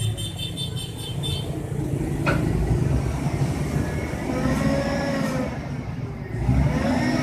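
An engine running, revving up and falling back twice over a steady low rumble.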